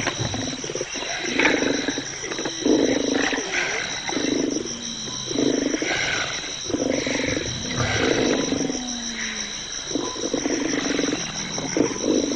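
Big cat growling in a series of rough, low strokes, roughly one a second, over a steady high-pitched trill.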